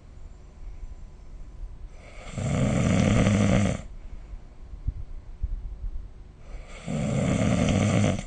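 A person snoring: two long snores, about four seconds apart, each lasting close to two seconds, with quiet breathing between them.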